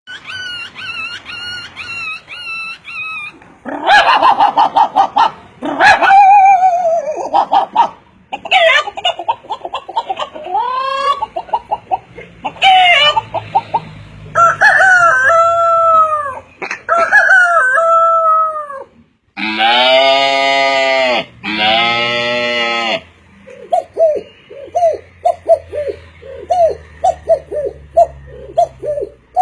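A series of different animal calls, one after another, with farmyard fowl among them: a rooster crowing and chickens clucking. Near the end comes a run of short quick calls, about two a second.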